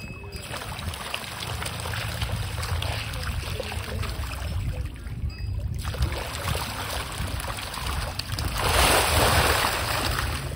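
Splashing and churning water from a dense crowd of carp thrashing at the surface as they feed, with a louder surge of splashing near the end.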